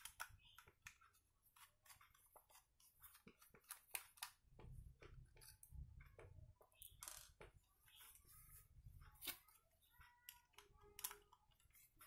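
Faint, irregular clicks and small scrapes of a screwdriver backing out the small screws of a laptop hard drive.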